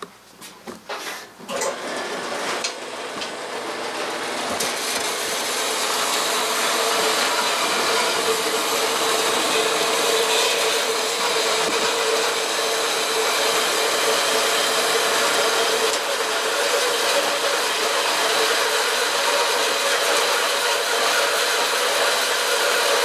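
Horizontal metal-cutting band saw running and cutting metal stock, a steady whirring hiss with a steady hum. It builds up over the first few seconds after a few knocks, then runs evenly.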